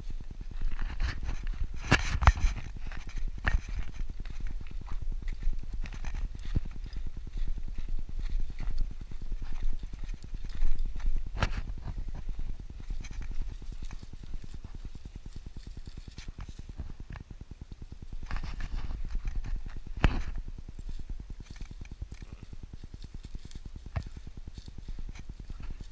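Footsteps of a person walking steadily on a dirt trail, a rhythmic clip-clop of small knocks, with a few sharper knocks now and then.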